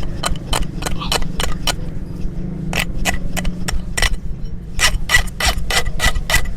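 Quick series of sharp metal taps and clicks, about three or four a second, some with a slight ring, from farrier's tools working on a donkey's hoof, over a steady low hum.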